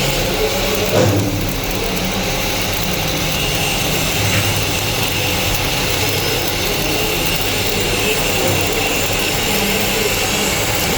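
Stick (shielded metal arc) welding with a 2.5 mm E6013 electrode during the hot pass: the arc gives a steady, even hiss.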